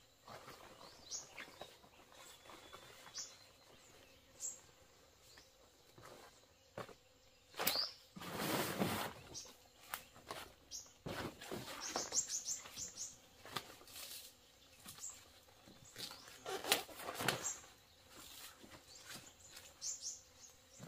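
Small birds chirping, short high calls repeated on and off, with louder scraping, rustling and knocking from work in the undergrowth now and then, the longest about a second long near the middle.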